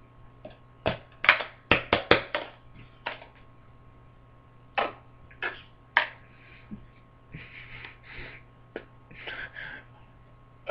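A burst of sharp knocks and thumps from someone thrashing about at a desk, bunched together about a second in, then a few scattered ones, with two short noisy rushes near the end, over a low steady electrical hum.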